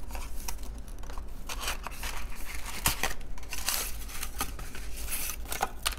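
Paper and plastic packaging crinkling and rustling as it is handled and unwrapped, with scattered sharp clicks, one louder than the rest about three seconds in.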